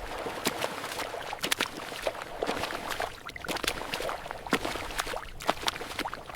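Footsteps in wet mud, each a squelching, sticky impact with a little splatter, in a quick, steady run of about two to three steps a second.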